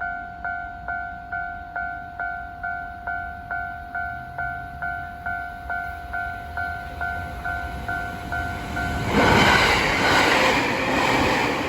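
Japanese level-crossing warning bell ringing, an electronic two-tone ding repeating nearly three times a second. About nine seconds in, a Tokaido Line train passes at speed, its loud rush and rhythmic wheel clatter drowning the bell.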